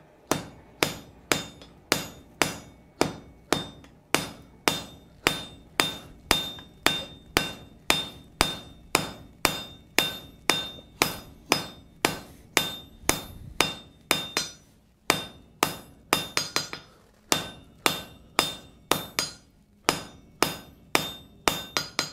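Hand hammer striking a white-hot folded steel billet on an anvil, setting an accordion forge weld: steady blows about two to three a second, each ringing briefly, with a few short pauses and a quicker run of blows near the end.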